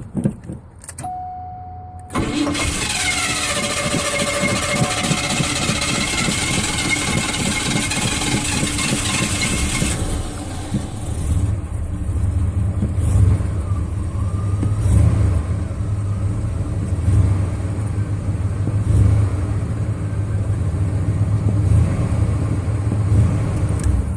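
Car engine being cranked by the starter for about eight seconds before it catches: a hard start. It then runs with an uneven, rising and falling low hum.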